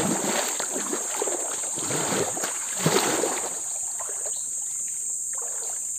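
Water sloshing and splashing as someone wades through a shallow, muddy pool. It is busiest in the first three seconds, with a louder splash about three seconds in, then dies down. A steady, high insect drone runs underneath.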